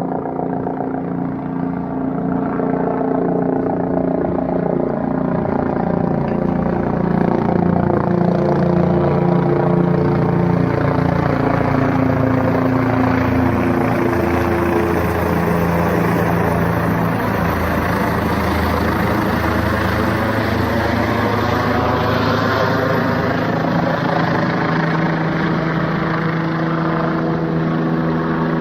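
Firefighting helicopter flying close, its rotor and engine drone steady and loud, with the pitch of the tones shifting slowly as it moves about.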